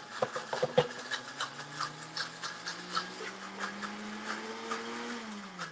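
High-speed blender running through a thick, creamy tzatziki while the tamper pushes it down onto the blades. The motor's pitch climbs slowly, then drops and winds down near the end, with a regular ticking about three or four times a second.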